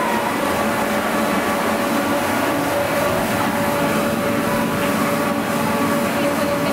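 Steady mechanical hum with a few steady tones, from the machinery of a sand table exhibit that jets spouts of sand up into the air.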